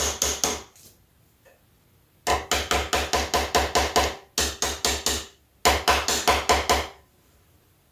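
Quick, light hammer taps seating a new rear main seal onto the engine block, gentle so as not to damage the seal. Three runs of about six taps a second, the second starting about two seconds in and the last ending about a second before the end.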